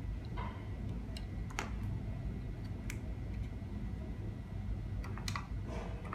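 Scattered light clicks and taps of alligator-clip leads and wires being handled and clipped toward a speaker's terminals, over a steady low hum.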